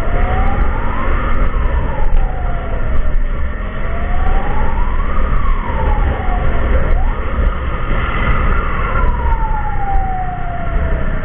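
Emergency siren wailing in slow rising and falling sweeps, each rise or fall taking a second or two, over a heavy low rumble.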